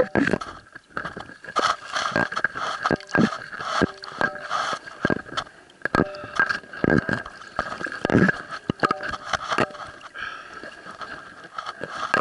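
Irregular knocks, scrapes and gurgling water from a diver's gear rubbing and bumping against an underwater camera housing, over a faint steady high whine.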